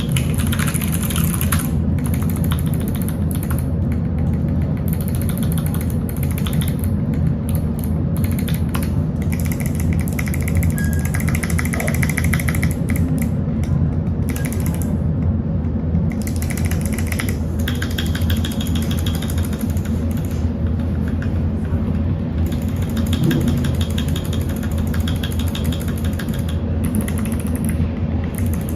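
Rapid, continuous clacking of keys being typed on a MAXFIT67 mechanical keyboard with PBT keycaps, over a steady low hum.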